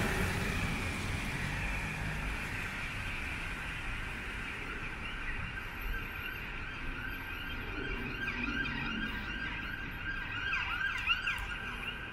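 An emergency vehicle siren sounding over city traffic noise, gradually fading, with quick rising and falling pitch sweeps near the end.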